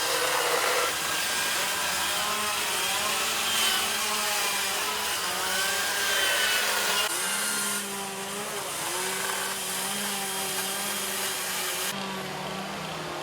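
Several chainsaws running at once, carving into wood, their engine pitches rising and falling independently as they rev and bog.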